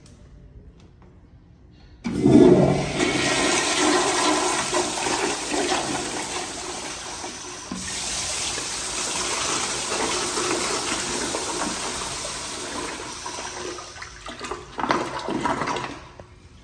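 1987–1993 American Standard Afwall toilet flushing through its flushometer valve: a sudden rush of water about two seconds in, then a steady swirling flush. A brief louder surge comes near the end before the water dies away.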